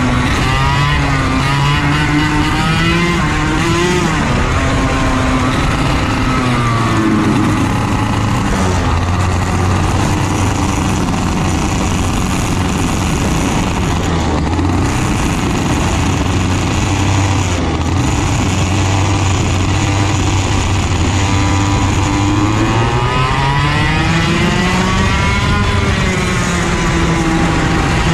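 Racing kart engine running hard, its pitch rising and falling as the revs change several times in the first few seconds and again near the end, holding steadier through the middle.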